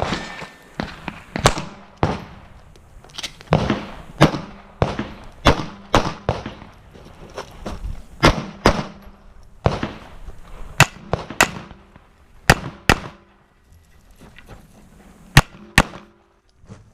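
About twenty pistol shots fired in a competition string at steel targets, a fairly even run of shots through the first half and then mostly pairs with short pauses between them.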